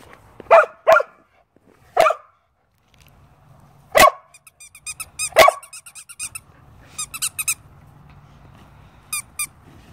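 Samoyed barking, five loud short barks over the first half, and short runs of quick high-pitched squeaks between and after them.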